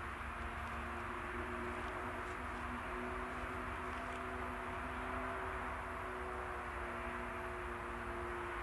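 Steady outdoor background noise, a hiss over a low rumble, with a faint low hum that drifts slowly in pitch.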